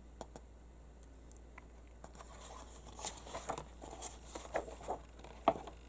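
Glossy comic book pages rustling and crinkling as they are turned by hand. Nearly quiet for about two seconds, then a run of soft paper crackles.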